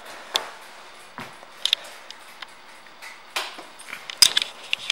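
Handling noise: scattered light clicks, taps and rustles, with a cluster of sharper clicks about four seconds in.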